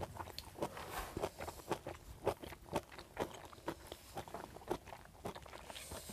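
Close-up chewing of crunchy boiled pig offal: an irregular run of crisp crunches, several a second.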